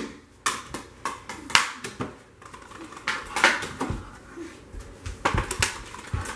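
Indoor stick-hockey play: hockey sticks and a ball or puck clacking against a hard floor as shots are taken. The sharp knocks come irregularly, in several small clusters, with a small-room echo.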